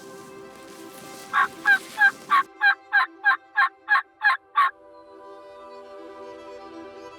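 A series of about eleven turkey yelps, evenly spaced at roughly three a second, with faint steady background tones underneath.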